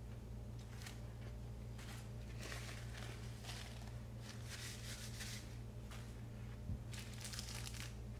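Paper napkin and burger wrapper crinkling and rustling in a series of short handlings, over a steady low hum.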